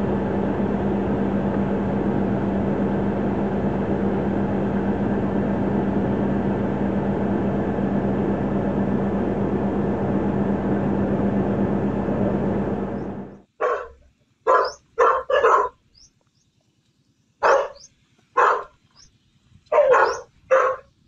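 A steady hum and hiss for about thirteen seconds, then a dog barking: about nine short barks in small groups.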